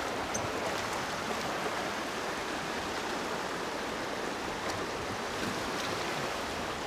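River current rushing steadily: an even wash of flowing water.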